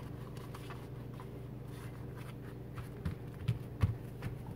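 Beeswax wrap being folded by hand on a countertop: faint crinkling of the stiff waxed cloth, then from about three seconds in a few soft thumps as a hand presses it flat against the counter, over a steady low hum.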